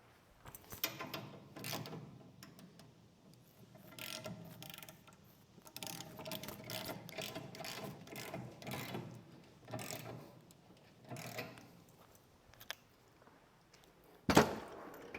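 A ratchet being worked in several short bursts of rapid clicking, tightening something down, with a loud knock near the end.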